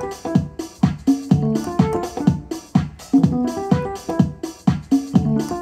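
Instrumental background music, keyboard-led, with a steady beat.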